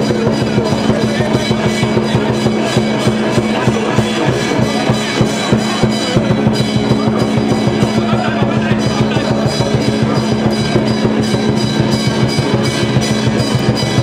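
Drums and other percussion played continuously at a fast, steady beat over a constant low ringing tone.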